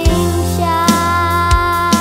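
A song plays: a singer holds one long note over a steady bass, with drum beats at the start and twice near the end.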